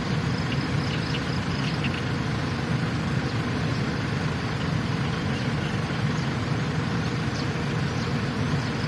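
Truck engine running steadily with an even, low drone.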